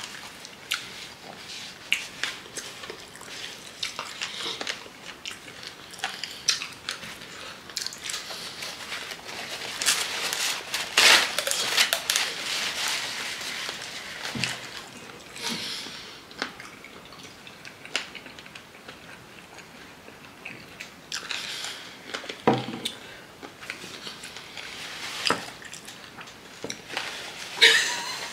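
Chewing and biting on chicken feet and fries close to the microphone, with irregular small clicks and crunches.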